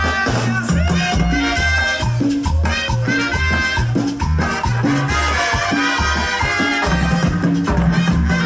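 Live tropical dance orchestra playing: a pulsing bass line and shaker-style percussion under bright melodic lines.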